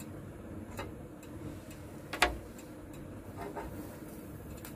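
Brinjals being set on a metal wire mesh grill over a gas burner: scattered light clicks and knocks, with one sharper knock about two seconds in, over a low steady hum.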